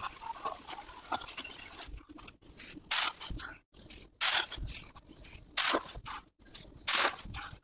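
CNC plasma torch cutting 10 mm mild steel plate, the sound played back at ten times speed. A steady hiss for about two seconds, then short separate hissing bursts about once a second with quiet gaps between them.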